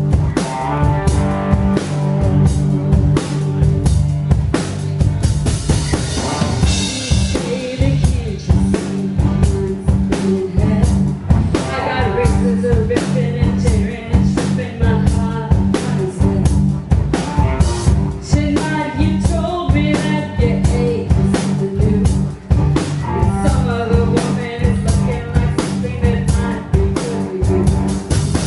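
A live rock band playing: drum kit, electric bass and electric guitar, with a woman singing lead in several phrases over them.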